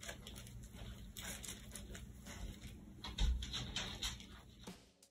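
Paintbrush dabbing glue onto scrunched paper towel over a crinkly plastic bag: a run of rustles and soft taps, with a dull bump about three seconds in. The handling sounds stop shortly before the end.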